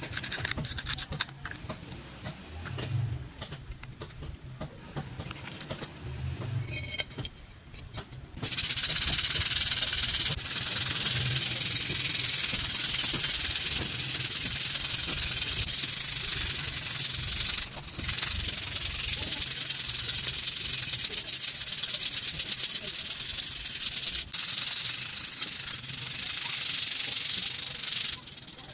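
Sandpaper rubbed back and forth by hand over a rusty steel knife blade to take off the rust: a steady, scratchy rasp that starts about eight seconds in and breaks off briefly twice. Before it there are only quieter handling sounds.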